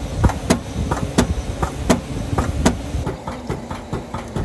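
A machine running with a low rumble and sharp knocks about every half second to a second, changing to a lighter, quicker ticking about three seconds in.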